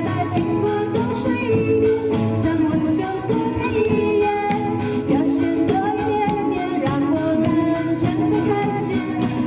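Upbeat Mandopop music with a steady drum beat and a melody line over it.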